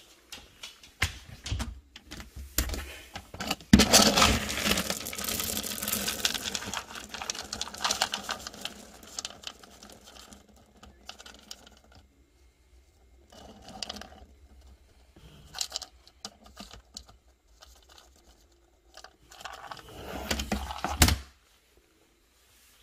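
Dry dog kibble rattling and rustling in a plastic storage bin as it is stirred and scooped with a plastic scoop, among bumps and clatter of handling. Near the end comes a sharp knock.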